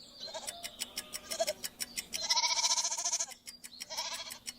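Goat bleating: a long bleat about halfway through and a shorter one near the end, with weaker calls before them.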